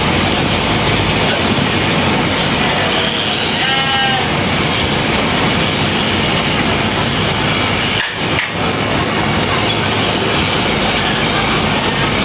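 Sheep shearing: a steady, loud, dense noise runs throughout, and a sheep gives one short bleat about four seconds in.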